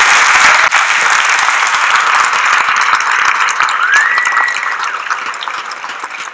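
Audience applauding, slowly fading, with a short rising whistle about four seconds in.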